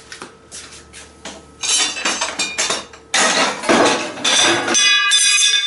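Pieces of scrap metal clinking and clattering together as they are handled, a few light clicks at first and then a busy clatter, with a ringing metallic tone near the end.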